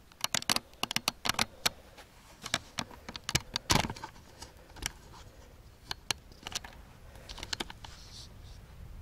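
Irregular clusters of sharp clicks and taps: handling noise from the camera being moved and re-aimed.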